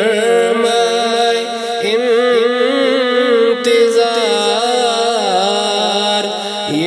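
Devotional Ramadan song (naat) in a wordless melodic passage: a sung line with sliding, wavering pitch over a steady low drone, with no percussion.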